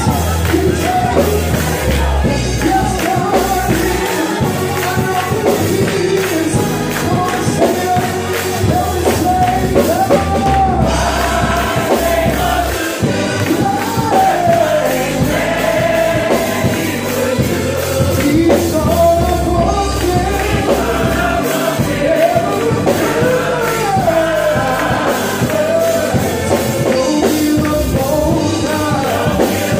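Gospel praise team singing live over instrumental accompaniment, with a steady bass underneath the voices.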